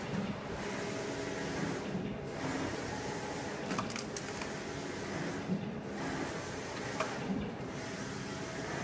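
Wide-format eco-solvent printer running, its print head carriage sweeping back and forth across the media, so the steady machine whir changes about every two seconds with each pass.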